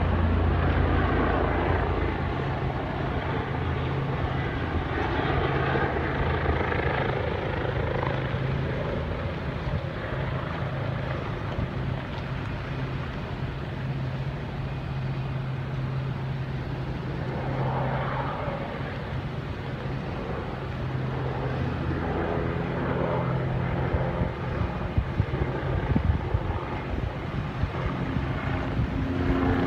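Firefighting helicopter's rotor and engine running steadily as it flies over the fire, a continuous low hum that swells and eases slightly as it moves.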